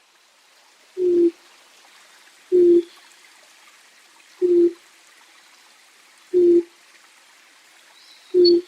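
A bird of the bittern and heron family gives a short, low, hollow hoot five times, evenly spaced about two seconds apart, over a faint steady background hiss. A faint high chirp comes near the end.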